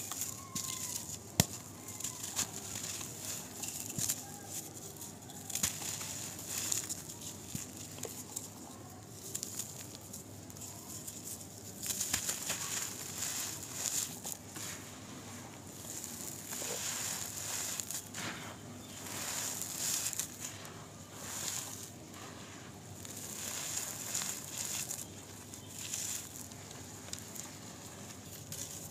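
Dry, gritty brown dirt being crushed and crumbled by hand and dropped in handfuls onto a pile, a crunching, crumbling sound with many small sharp cracks and sprinkling grains. Near the end the loose dirt is smoothed flat across a hard floor with the palm.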